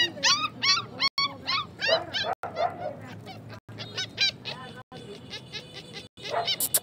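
A puppy yelping and whining in a rapid series of short, high-pitched cries, several a second, with brief breaks where the sound cuts out.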